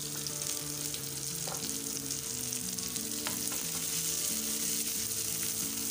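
Sliced onions sizzling in hot oil in a non-stick frying pan as they are stirred with a slotted spatula, with a couple of light knocks, while they are sautéed to soften.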